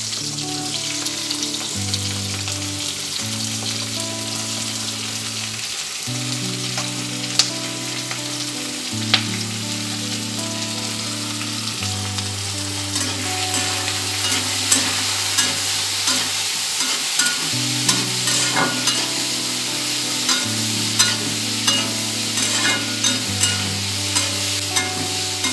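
Chopped onions sizzling as they fry in hot mustard oil in an iron kadai; from about halfway through, a metal spatula clicks and scrapes against the pan as they are stirred. Soft background music of long held notes runs underneath.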